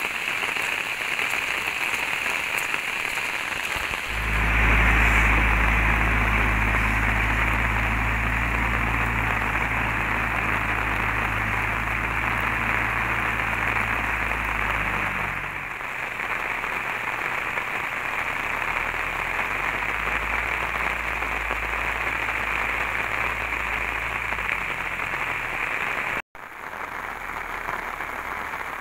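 Heavy rain falling steadily, drumming on an umbrella held overhead. A low rumble joins about four seconds in and drops away about eleven seconds later, and the sound cuts out for an instant near the end.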